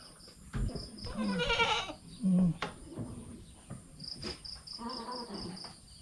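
Goats bleating: two wavering bleats about a second and about five seconds in, with a short, loud low call between them. Insects chirp in an even pulse of about four to five a second under the bleats.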